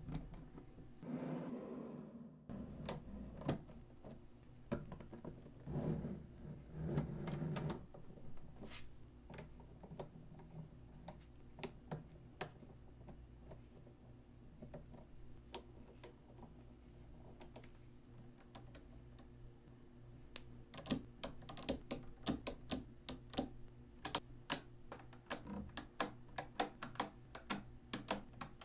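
Small magnetic balls clicking as they snap onto a magnet-ball model, in irregular sharp clicks that come thick and fast near the end. A few softer rubbing sounds come in the first several seconds as sheets of balls are handled.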